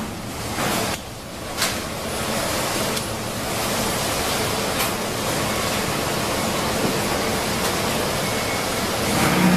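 Airbrush or spray gun hissing steadily as it sprays pink food colouring onto a fish-shaped kamaboko, with a short dip and a single click about a second in.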